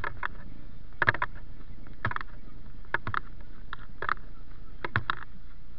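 Footsteps crunching on a gravel dirt surface, one step about every second, each a quick cluster of two or three gritty crunches, over a steady low background noise.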